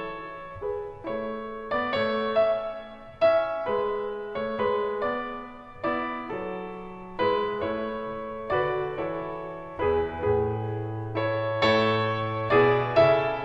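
Background piano music: a melody of struck notes over chords, each note dying away.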